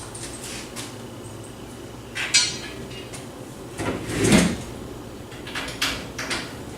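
Metal treestand parts being handled: a side rail and its bolts knock and clatter against the platform a few times, the first knock with a brief metallic ring, the loudest about halfway through, then a few small clicks.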